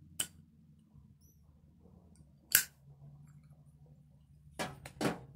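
Zippo lighter lighting a cigarette: a light click just after the start, a sharp, louder clack about two and a half seconds in, then two short rushing puffs near the end.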